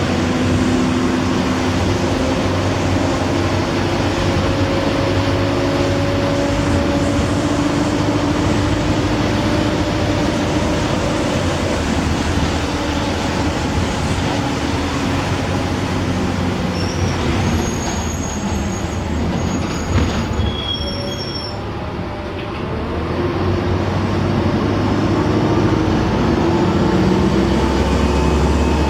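Mercedes-engined Optare Solo bus with Allison automatic gearbox running under way, its engine and drivetrain whining. About two-thirds through it eases off, with a click and a few brief high squeaks, then the engine climbs again as it pulls away.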